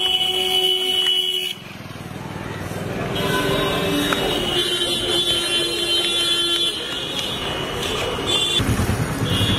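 Street traffic with vehicle horns honking in long, steady blasts, over the rumble of passing vehicles.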